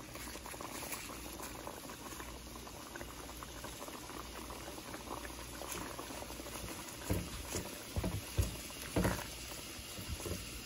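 Coconut-milk broth bubbling at a steady boil in a pot. In the last few seconds a spatula stirs through it with a few soft knocks against the pot.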